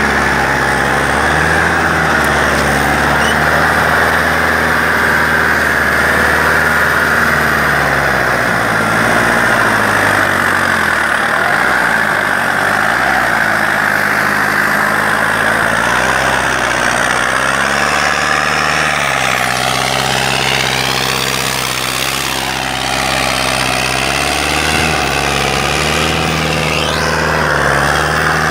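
Sonalika tractor's diesel engine running hard under heavy load while pulling a wide disc harrow through sand. Its note sags about ten seconds in and wavers again around twenty seconds as the engine lugs, then steadies.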